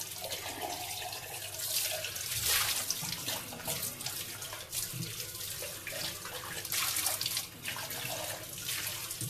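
Kitchen tap running into the sink as a container is rinsed out, the water splashing in uneven surges.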